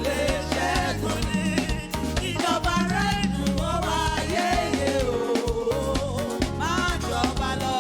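Upbeat praise-and-worship music: voices singing over a band with bass and drums keeping a steady dance beat.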